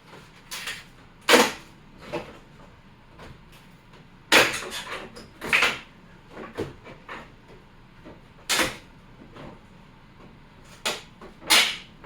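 Thin wooden boards of a brad-nailed box cracking and splitting as they are pried apart: about five sharp, loud cracks with smaller creaks and clicks between them.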